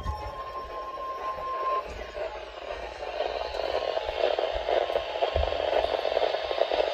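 Weather radio broadcast alert: a steady single warning-alarm tone near 1 kHz cuts off about two seconds in. Radio static hiss then swells in its place until the announcement begins.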